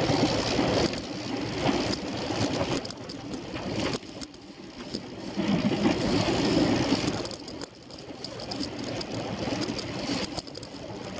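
Wind rushing over the microphone of a handlebar-mounted camera, with tyre noise from the bicycle rolling on the asphalt track; the rush swells and fades, dropping away about 4 and 8 seconds in.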